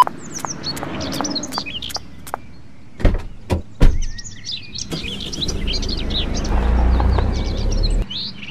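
Small birds chirping and tweeting throughout, as outdoor ambience. Two loud sharp knocks come a little after three and four seconds in, then a low rumble swells for about three seconds and cuts off suddenly near the end.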